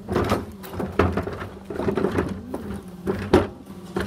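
Irregular knocks and rustling from a phone being handled while its holder walks, over a steady low hum.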